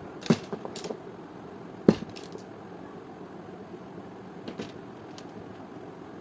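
Several sharp clicks and knocks of hard objects being handled, a quick cluster in the first second and the loudest single knock about two seconds in, over a steady low hiss.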